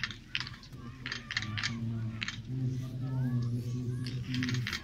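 Quick runs of sharp clicks, two or three a second, typical of biathletes' ski poles planting on hard-packed snow. Beneath them is a low steady hum that grows louder about halfway through.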